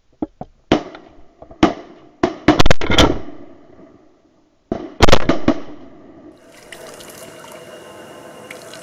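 Shotgun shots: a few single shots in the first couple of seconds, then a rapid run of overlapping shots about two and a half to three seconds in and another about five seconds in, each ringing out briefly. In the last two seconds a steady hiss takes over.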